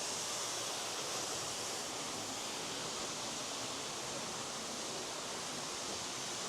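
South Falls, a 54-metre waterfall, rushing steadily.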